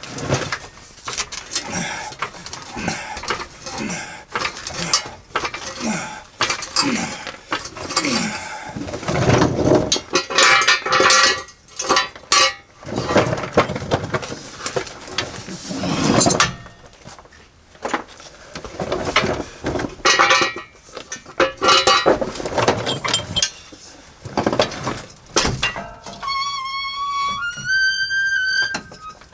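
Metal hand tools clanking and knocking against the transfer-case bolts, with music playing underneath. Near the end, a short run of clear tones steps upward in pitch.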